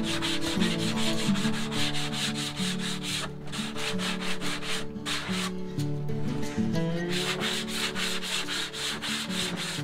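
Sanding block rubbed quickly back and forth along the cut edge of a high-density polyethylene sheet, about five rasping strokes a second, with short pauses a few seconds in. Background music plays faintly underneath.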